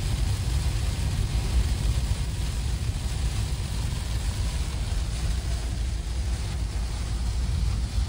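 Steady low rumble of a VW California campervan driving at speed on a rain-soaked road, heard from inside the cab, with a hiss from the wet road and the rain over it.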